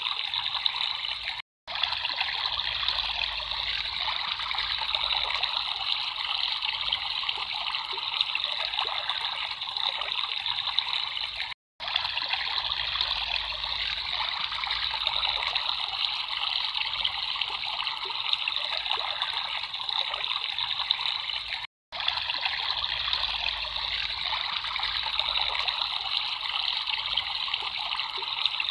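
Water trickling and running steadily over stones in a small stream. The sound drops out for a split second three times, about ten seconds apart.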